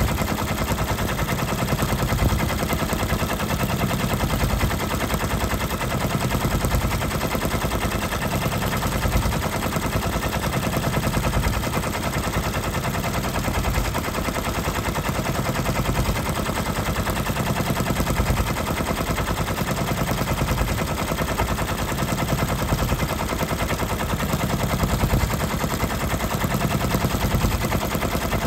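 Brother multi-needle embroidery machine stitching at speed: a fast, steady, even clatter of needle strokes as it sews the dense red fill of a rose design.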